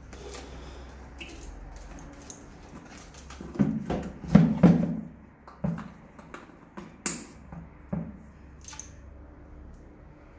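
A motorcycle's plastic airbox being pushed and worked into place by hand: a run of knocks, clicks and rubbing, loudest in a cluster of thuds about four seconds in, then a few single knocks.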